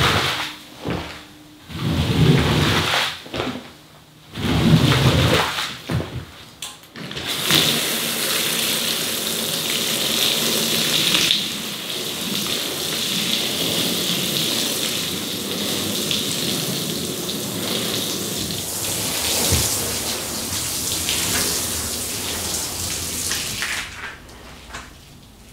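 For the first seven seconds or so, a squeegee pushes dirty water across a wet vinyl wash floor in several separate strokes. Then comes a steady rain-like splashing as shampoo solution is poured from a watering can onto the wet rug, stopping near the end.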